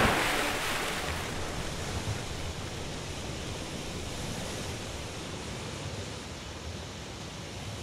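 Sea ambience: an even wash of small waves on the shore, slowly fading.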